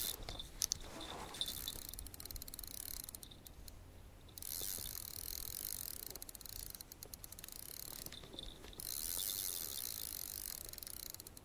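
Spinning reel being cranked, its gears ticking quickly in three long stretches with short pauses, as a hooked rainbow trout is reeled in.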